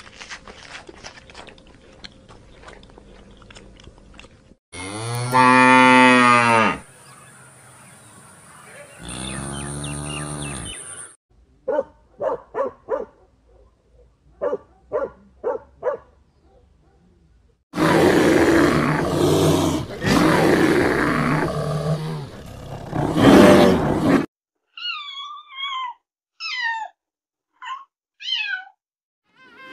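A run of different animal calls one after another: two long pitched calls, a quick series of short calls, a long harsh rough call, then short warbling chirps near the end.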